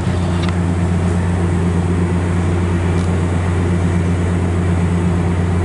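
Steady low drone from a MARC commuter train standing at the station, its diesel locomotive idling at an even pitch.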